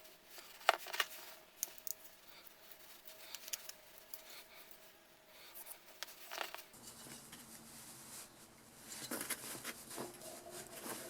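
Faint, scattered clicks and light rustling of hands working on a small-engine recoil starter, taking out its pull cord.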